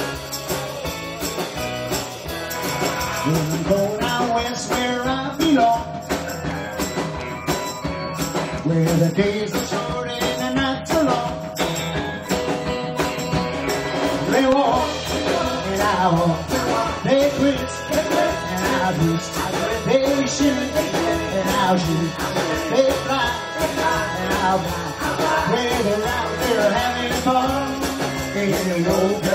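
Live rock and roll band playing: drum kit and electric guitars under a lead vocal, with backing singers at the microphones.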